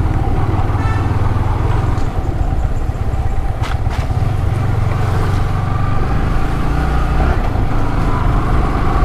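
Yamaha R15 V3's single-cylinder engine running steadily as the motorcycle is ridden slowly over a rough dirt road, with road and wind noise. There is a brief knock a little under four seconds in. The engine has just had fresh engine oil, and the rider says it now runs very smoothly.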